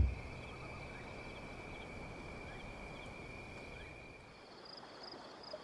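Faint rural outdoor ambience: a steady high insect drone that fades out about four seconds in, then short high chirps repeating about twice a second.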